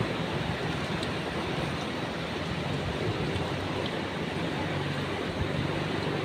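Steady rushing of sea waves with wind blowing on the microphone.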